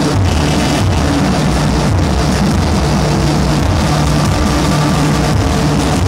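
Loud noise and drone music: a dense wall of distorted noise over low droning notes that shift in pitch every second or so.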